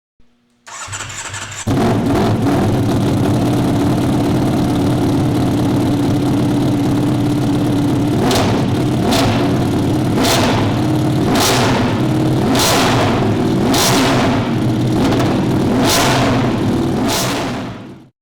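A Ducati Panigale V4 S's 1103 cc V4 race engine is cranked on the starter, catches after about a second and runs loud and steady. From the middle on it is blipped sharply about eight times, roughly once a second, before the sound cuts off.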